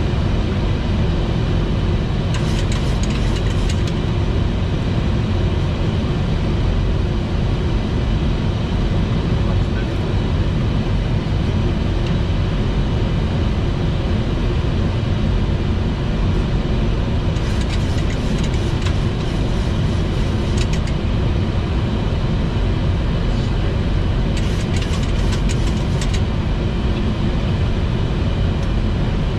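Steady flight-deck noise of a Boeing 737 MAX on approach: an even, dense rush of airflow and engine sound, heaviest in the low end. A few short spells of crackling cut in, near the start and twice in the second half.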